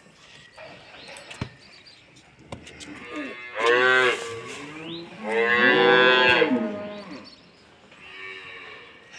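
Calf mooing loudly twice, about three and a half seconds in and again about five and a half seconds in, the second call longer, with fainter lowing from other cattle before and after.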